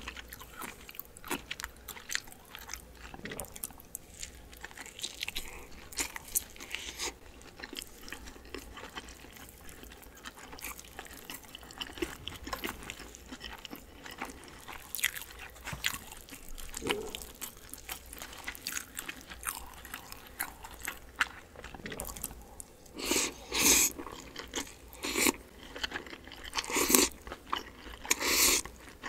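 Close-miked chewing of a dumpling and cold noodles, with small wet mouth clicks throughout. Several louder slurps of noodles come in the last few seconds.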